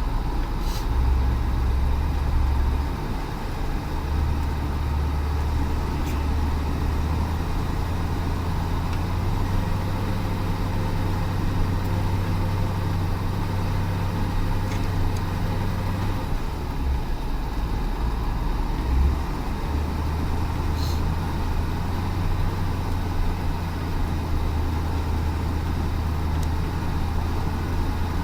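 Heavy truck engine running under load with a low, steady drone that shifts in pitch a few times, as if changing gear or throttle, while it labours along a snowy road.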